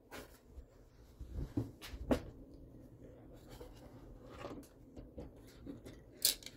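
Light knocks and clicks of a miniature Jumanji board-game replica case being opened by hand, with a sharper click about two seconds in and another near the end. The game's built-in drum sound does not play, because its battery is dead.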